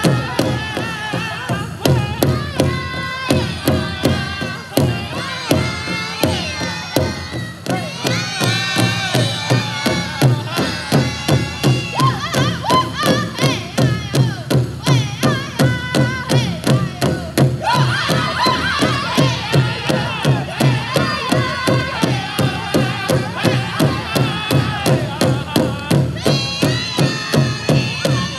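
Powwow drum group singing a contest song over a big drum struck in a steady beat of about three hits a second, with high, strained singing voices rising over the drum in several stretches.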